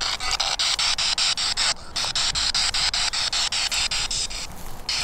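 P-SB7 spirit box sweeping through radio stations: a steady hiss of static chopped about seven times a second, with two short breaks, about two seconds in and near the end.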